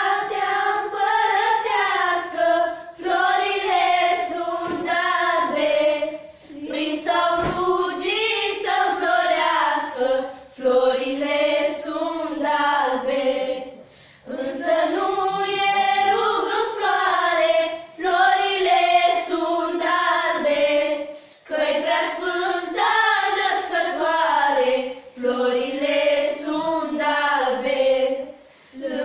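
A group of teenage girls singing a traditional Romanian Christmas carol (colind) together, unaccompanied, in phrases of a few seconds with short breaths between them.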